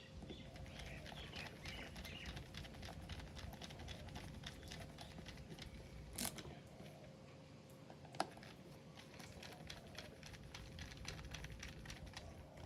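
Many small irregular clicks and taps of metal parts and tools being handled during reassembly of a Shimano Tiagra 130 fishing reel, with a sharper knock about six seconds in and another about eight seconds in, over a faint steady hum.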